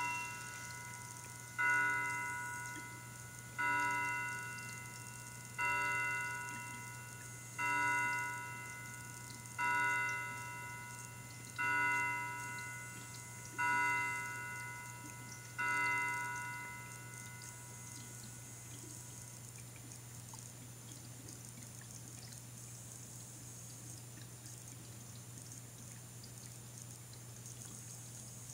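A chiming clock striking the hour: eight identical bell-like strikes about two seconds apart, each ringing out and fading. After the last strike only a steady low hum remains.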